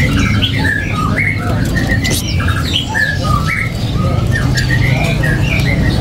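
Caged songbird singing a quick run of short chirps and whistled notes, some sliding up or down in pitch, over a steady low background hum.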